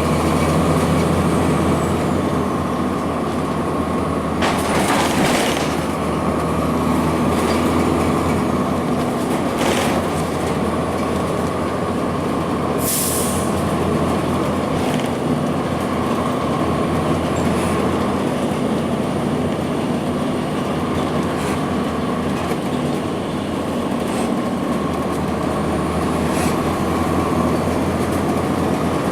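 2002 Blue Bird CS transit bus's Cummins ISC diesel engine running steadily under way, with a steady whine over the engine note. A few short rattles and a brief high hiss come about 5, 10 and 13 seconds in.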